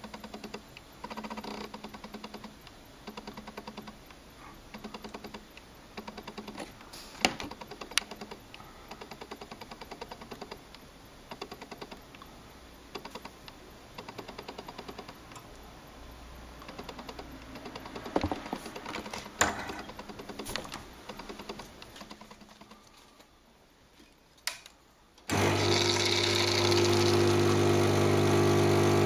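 Faint repeated ticking with a few sharp clinks, then about 25 seconds in the pump of a La Piccola Sara Acqua espresso machine starts with a loud, steady hum as hot water runs from its hot-water outlet into a glass.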